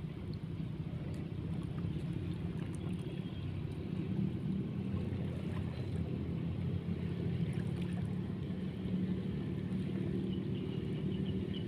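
A steady low engine drone with no change in pitch or level, typical of a motorboat's engine running.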